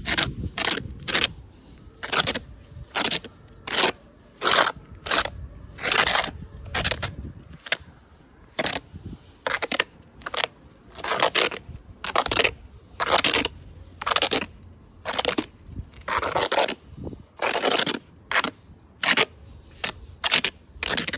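A hand tool scraping repeatedly, in short uneven strokes about one or two a second.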